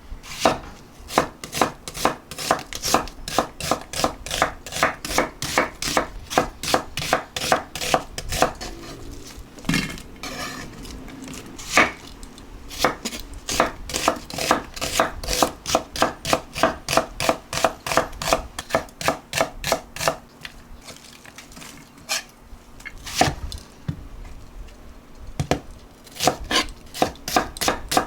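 Knife chopping on a cutting board: a steady run of quick strikes, about three a second, thinning out for a few seconds twice before picking up again.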